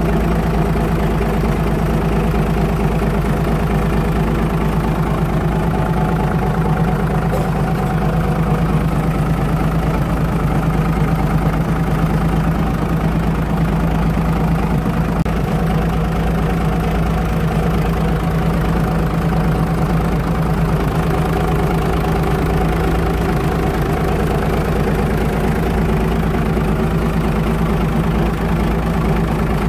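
Yamaha SX420KS four-cylinder inboard marine diesel idling steadily, heard close over the open engine hatch.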